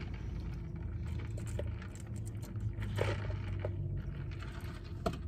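Soft drink sipped through a straw from a large paper cup, with a short slurp about three seconds in and small clinks and rattles from inside the cup, over a steady low hum.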